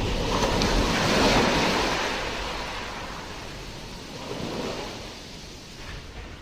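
Nature-sounds soundtrack of surf: a wave washes in, loudest about a second in, and slowly recedes, followed by a smaller second swell.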